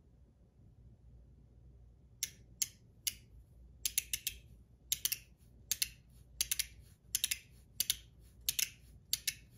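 Blackened stainless steel ACEdc Pico Pick magnetic fidget worked repeatedly: sharp metal clicks, often two or three close together, coming roughly once or twice a second from about two seconds in. Not loud at all, metering about 63 to 67 dB.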